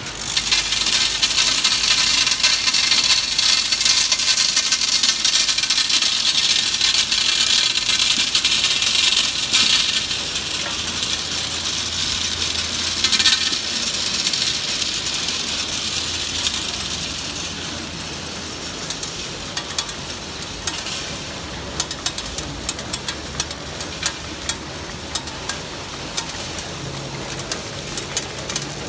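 MWCA Mini Wrap candy-wrapping machine running with hard candies: a loud, dense rattle of candies on the feed hopper and rotary feed disc over a low motor hum. In the last third the rattle is quieter, with frequent sharp ticks and clicks.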